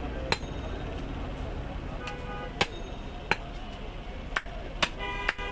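Butcher's knife chopping meat on a wooden block: about six sharp knocks, irregularly spaced. A vehicle horn sounds briefly near the end.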